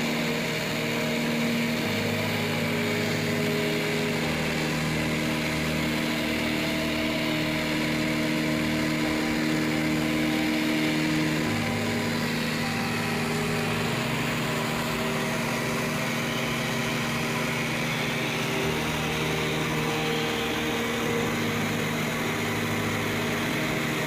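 Cessna 180 floatplane's engine and propeller in cruise flight, heard inside the cabin as a steady, unchanging drone.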